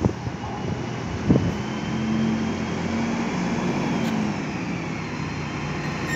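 Engines of single-deck buses running as they move off and pass close by, a steady low hum that swells slightly about two seconds in. A brief knock sounds about a second in.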